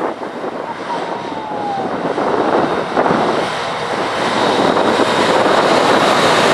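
Class 60 diesel-electric locomotive, with its eight-cylinder Mirrlees engine, approaching and passing at the head of a train of loaded tank wagons, growing louder as it comes level. Wind noise on the microphone.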